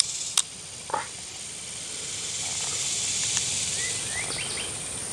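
Steady high-pitched buzz of insects, with two short sharp cracks in the first second from a boiled crawdad claw's shell being bitten to crack it open.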